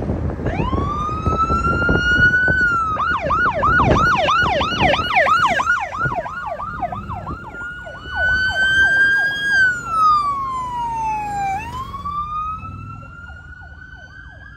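Police escort siren: a rising wail, then a few seconds of rapid yelp that gradually slows, then back to a long wail that rises, falls and rises again, growing fainter near the end. Wind buffeting and road rumble sit under the first few seconds.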